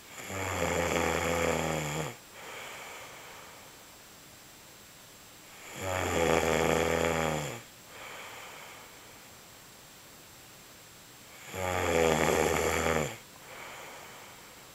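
A man snoring: three loud, buzzing snores about six seconds apart, each under two seconds long and each followed by a softer breath.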